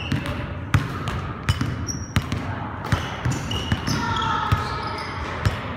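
Basketball bouncing on a hardwood gym floor, a run of irregular sharp thuds as it is dribbled and played.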